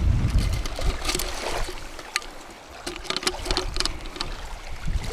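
River water lapping and trickling, with scattered sharp clicks and a low wind rumble on the microphone during the first second.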